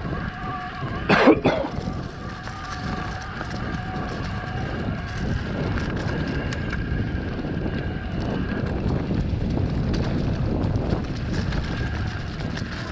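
Electric mountain bike rolling over a leaf-covered dirt trail: steady tyre and wind noise, with the faint whine of the Shimano mid-drive motor under assist that drops away about two-thirds of the way through. A loud double clunk from the bike about a second in.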